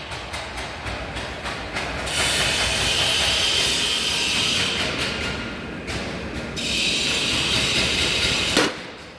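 Paving-stone vibrating machine running with a loud mechanical rattle. A hissing, buzzing band comes in about two seconds in, stops near the five-second mark and comes back for about two more seconds. A sharp knock follows near the end, and the machine is much quieter afterwards.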